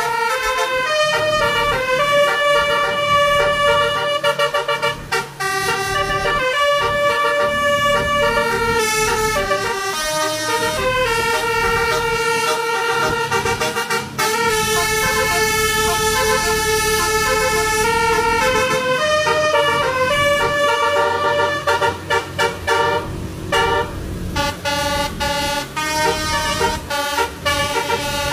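Indonesian bus telolet horn, a Basuri multi-tone air horn, playing a tune of held notes that step up and down in pitch. In the last few seconds it breaks into quick, short toots.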